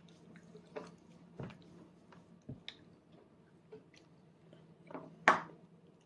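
A toddler chewing food with soft, wet mouth clicks, over a faint steady hum. A single much louder, sharp click-like noise comes about five seconds in.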